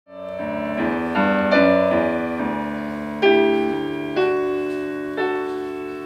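Bogányi grand piano played solo: slow chords struck one after another, about one a second, each left to ring and die away.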